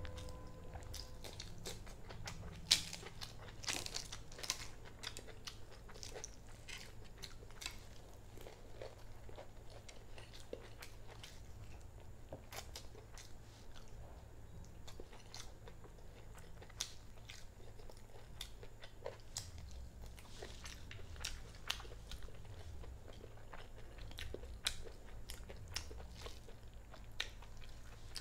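Close-up chewing and mouth sounds of a person eating turmeric rice and chicken bhuna by hand, with many scattered short, sharp clicks and smacks.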